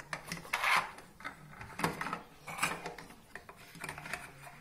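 Large plastic interlocking toy blocks clicking and knocking as they are pressed together and handled on a wooden tabletop, in irregular taps with short rubbing scrapes.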